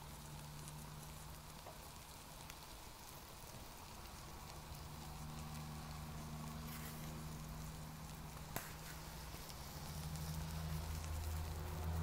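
Mini Fancee Feest alcohol stove burning under a paper container of water as the water heats toward a boil: a faint steady hiss with light crackle. A low steady hum grows louder near the end, and there is a single click about two-thirds of the way through.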